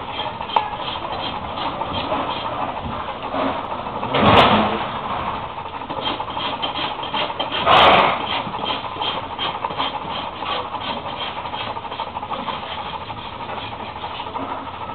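Farrier's rasp working a heavy draft horse's hoof on a hoof stand, in quick regular strokes of about three a second. Two louder rasping bursts come about 4 and 8 seconds in.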